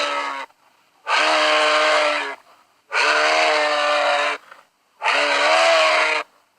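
Moose calling four times: drawn-out, nasal, moaning calls of just over a second each, steady in pitch with a slight bend at the start, separated by short pauses.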